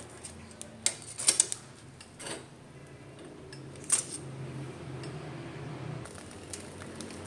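Leaf-wrapped rice parcels being turned on a sate grill over a low flame: a few sharp clicks and taps over a low steady hum, which stops about six seconds in.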